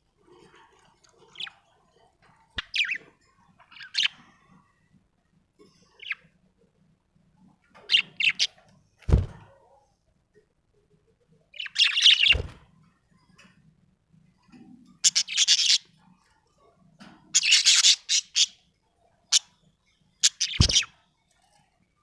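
Budgerigar chirping in short bursts with pauses between them, the busiest bursts in the second half. A few sharp knocks fall among the calls.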